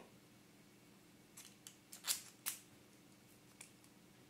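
A handful of faint, sharp clicks and taps from a small precision screwdriver and a tiny lens screw being handled and picked up, the loudest about two seconds in.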